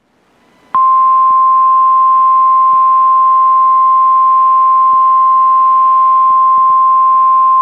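NOAA Weather Radio 1050 Hz warning alarm tone: a single steady, loud beep that switches on abruptly under a second in and holds, heard through a radio receiver with faint static hiss beneath it. It is the alert tone that comes before a weather warning or watch message.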